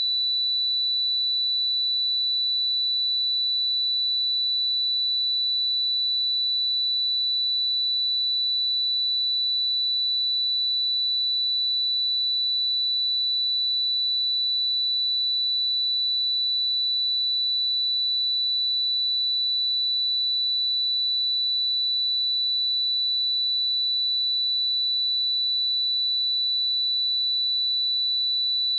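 Steady, unbroken 3966 Hz sine-wave test tone: a single high-pitched pure tone.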